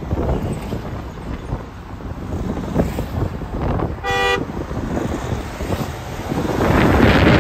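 A car horn gives one short toot about four seconds in, over wind buffeting the microphone and road noise from a moving car. The wind grows loudest near the end.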